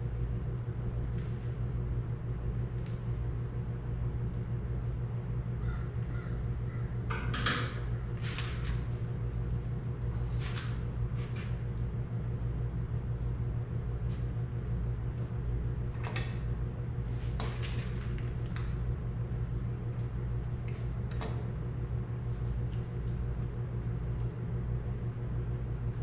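Scattered metallic clinks and clicks of hand work on a tractor engine over a steady low hum.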